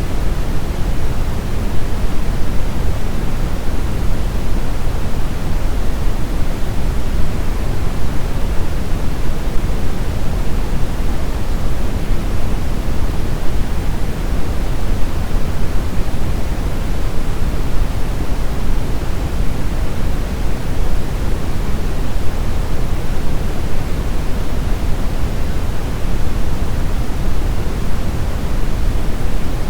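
Brown noise: a steady, unchanging rushing hiss weighted heavily toward the low end, deep rumble strongest and highs faint.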